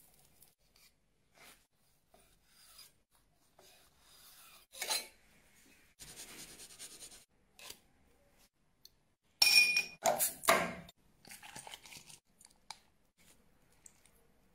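Intermittent scraping, rubbing and clicking as cooked fish is handled on a stone plate, with short sharp noises and a louder burst of scrapes about ten seconds in.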